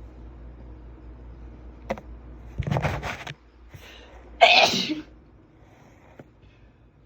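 A woman sneezing forcefully. There is a noisy burst about two and a half seconds in, then the loudest, explosive sneeze about four and a half seconds in.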